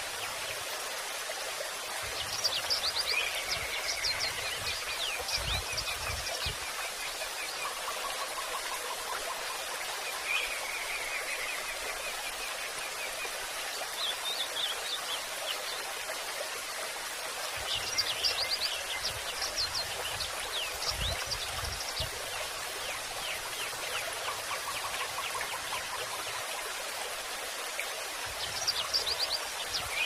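Rushing water with birds singing over it: a steady hiss of flowing water, and bursts of quick high chirps and trilled phrases that come and go several times.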